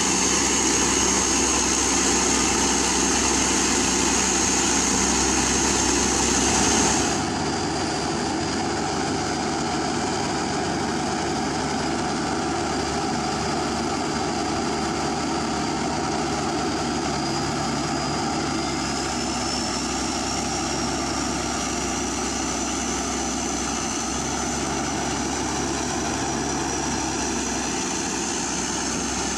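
Diesel engines of hydraulic excavators running steadily under working load, with a thin high whine held above the drone. The sound shifts abruptly about seven seconds in, and the whine drops lower, then slowly rises again later on.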